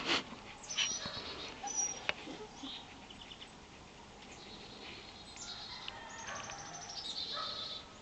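Alarm calls of small backyard songbirds, which the recordist heard as mostly Carolina chickadees and tufted titmice: short high calls and rapid strings of repeated notes, busiest in the second half. A loud brief sound right at the start.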